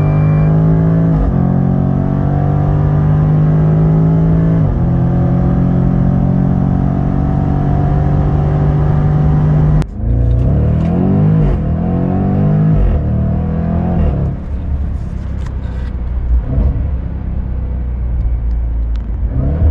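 Jaguar F-Pace SVR's supercharged 5.0-litre V8, heard inside the cabin under full-throttle acceleration: the pitch climbs steadily, with upshifts about a second and about five seconds in. Near halfway it cuts off suddenly. A run of quick revs rising and falling follows, then a rougher, lower running with scattered sharp clicks.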